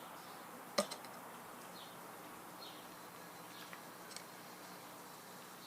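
Small metallic clicks and ticks of hand tools working a set screw on a cast-iron gearbox, one sharp click a little under a second in and a few faint ticks later. Faint short high chirps recur about once a second over a low steady hum.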